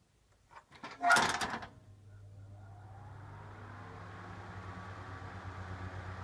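National FY-25SF1 exhaust fan (1990) starting: a burst of clicks and rattling about a second in, then the motor spinning up. A low hum grows steadily louder while a whine rises in pitch and levels off.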